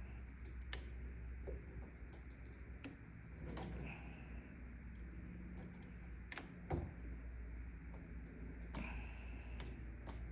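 Sparse light clicks and knocks, a few seconds apart with the sharpest about a second in, as a kayak trolling motor's shaft is swung in its mount by a homemade steering handle, over a faint low hum. The motor itself is not running.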